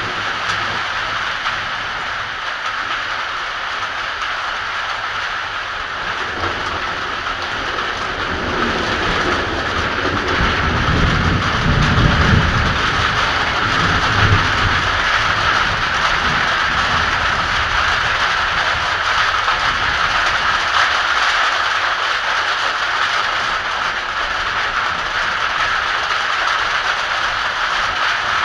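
Heavy rain pouring steadily, with a long low rumble of thunder that rolls in about six seconds in, is strongest around twelve seconds and dies away a few seconds later.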